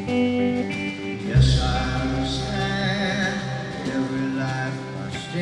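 Live country band playing a slow instrumental intro: picked guitar notes, with the bass coming in about a second and a half in and a wavering melody line over it.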